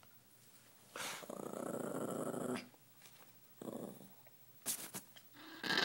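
A maltipoo growling: one long growl about a second in, then shorter growls near the end. The growling is possessive guarding of the dollar bills she holds.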